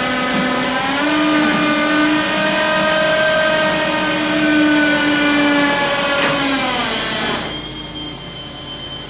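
A motor running at a steady, fairly high pitch, rising slightly about a second in and winding down before cutting off near the end.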